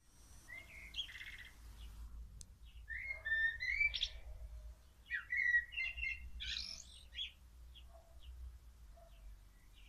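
Eurasian blackbird singing: three warbled, fluty phrases in the first seven seconds, gliding up and down in pitch, then only faint short high notes.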